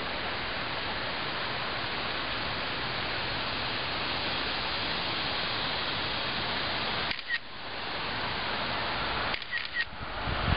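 Digital camera taking photos: a short high beep and click about seven seconds in, then two more close together near the end, over a steady hiss of outdoor background noise.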